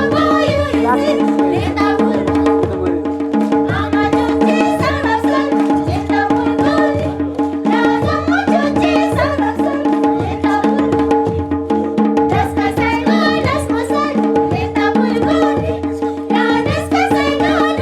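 Changthang (Changpa) folk dance music: a drum beating a steady rhythm under a held drone and a wavering sung or played melody.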